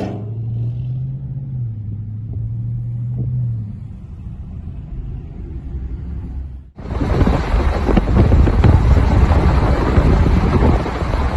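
Dodge Charger R/T's Hemi V8 on long-tube headers, catless mid pipes and no mufflers, running with a low steady exhaust rumble. About two-thirds through it cuts abruptly to a much louder, rougher rumble with wind on the microphone.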